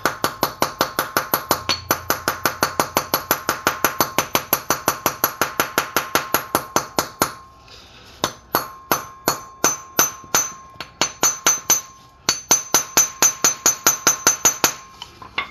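Hammer striking steel, driving a wheel bearing race into the front hub of a 1998 Toyota Tacoma: a fast, even run of ringing metal-on-metal blows, about five a second. The blows stop briefly twice, at about seven and twelve seconds, then resume.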